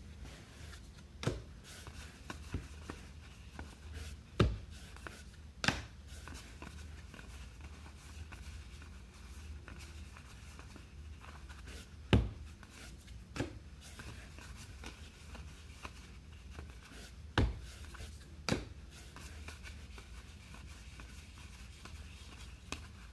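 Trading cards being handled and tapped down on a table: sharp knocks, mostly in pairs about a second apart, over light handling rustle and a steady low hum.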